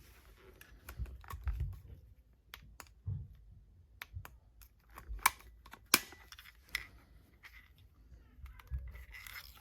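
Scattered light clicks and a few low knocks of handling, with two sharper clicks a little past the middle.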